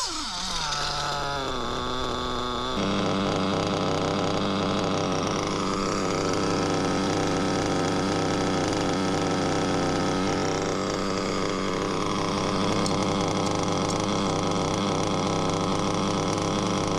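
HOBBYTECH B213 nitro engine in an RC buggy, its revs falling quickly at first, then running at a steady idle from about three seconds in.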